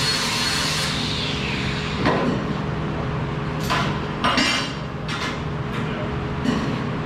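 Several sharp metal clanks and knocks, steel parts or tools being struck or set down, over a steady hum of shop noise. A broad hiss fades out in the first second or two.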